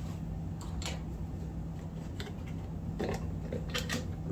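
Light metal clicks and taps as the side cover is worked off the engine case, a few near the start and a cluster in the last second, over a steady low hum.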